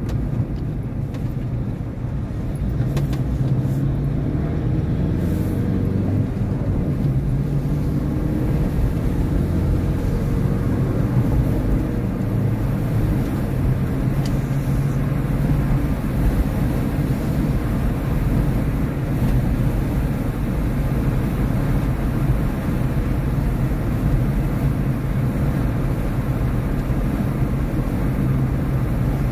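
Car driving on a sealed road, its engine and tyres making a steady low rumble as heard from a dashcam inside the car; it picks up a little about two seconds in as the car gathers speed out of a roundabout, then holds steady at cruising speed.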